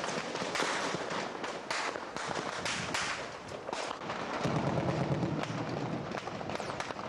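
Gunfire: sharp shots cracking in quick, irregular succession, several a second for the first four seconds, then thinning out, with a low rumble in the middle of the stretch.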